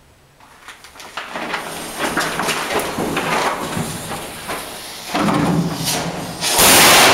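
Firework rocket in a bunker: a lit fuse crackles and hisses, building and growing louder, then a very loud burst as the rocket fires near the end.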